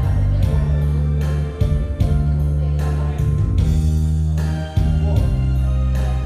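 Instrumental backing-track music with a heavy bass line and a steady beat, playing as an intro before the saxophone comes in.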